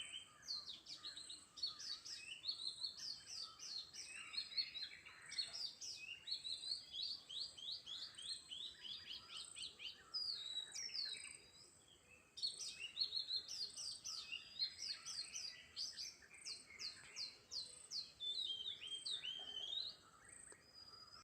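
Several small birds chirping and singing together in rapid runs of short down-slurred notes, with a brief lull a little past the middle.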